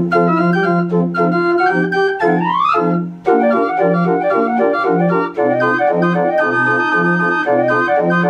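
Instrumental keyboard music: a melody of held chords over a steady repeating bass, with a quick rising run a little after two seconds in.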